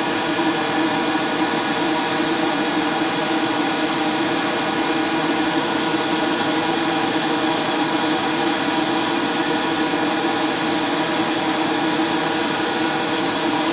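Gravity-feed airbrush spraying paint, its air hiss cutting out and back in every second or two as the trigger is worked, over the steady hum of a hobby spray booth's extractor fan.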